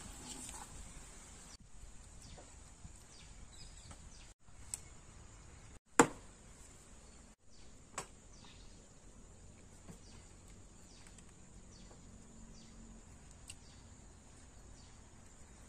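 Steady high insect chirring, with short falling bird chirps over it, and a few sharp knocks, the loudest about six seconds in.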